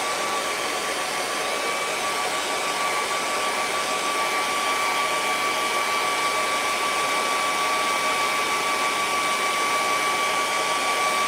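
Hair dryer blowing steadily over a wet acrylic painting to dry the paint so it won't mud up: a constant rush of air with a steady motor whine.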